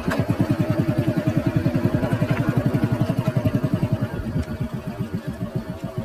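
A small vehicle engine running at steady, low revs, making a regular throb of about seven to eight beats a second with a steady hum above it.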